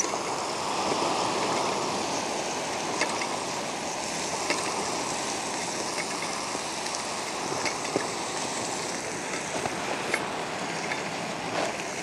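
Iberico pork, bean sprouts and onion frying with a steady sizzle in a thin 100-yen frying pan over a Coleman gasoline single burner. A few light clicks come from the utensil against the pan.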